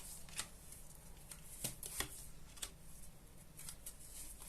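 Tarot cards being shuffled and handled: a few quiet, irregular swishes and taps of the cards.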